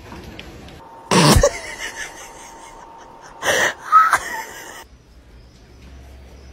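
A dog sneezing. One loud burst comes about a second in and two more about three and a half to four seconds in, each short and sudden.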